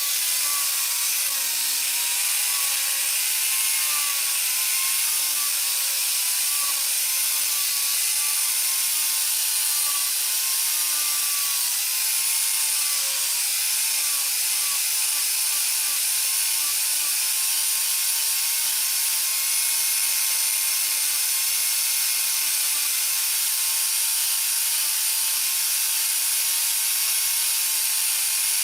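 Angle grinder fitted with a chainsaw chain running and cutting wood: a steady, loud power-tool noise whose motor whine wavers in pitch as the chain takes load.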